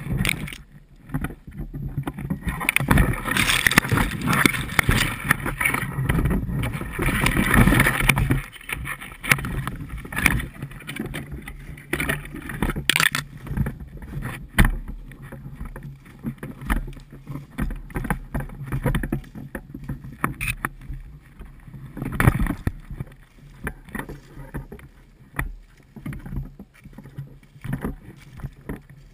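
Spruce branches and dry undergrowth rustling and scraping against a body-mounted camera as someone pushes through, heaviest over the first eight seconds or so. Then footsteps through dry grass and leaf litter, with scattered sharp knocks of gear handling.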